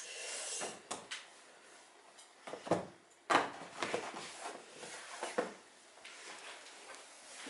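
A series of separate knocks and clunks, with handling rustle between them, as objects are picked up and set down on a table; the loudest come in a cluster about three seconds in.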